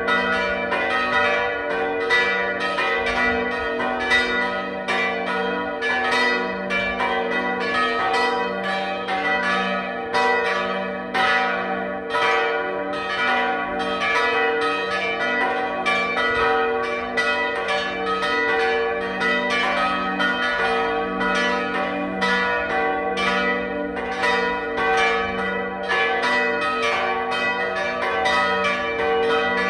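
Full peal of four church bells, post-war Oberascher bells weighing about 1.3 tonnes together, tuned g', b', d'', e'' and out of tune, all ringing at once. Strikes fall unevenly, several a second, over a steady hum of overlapping notes.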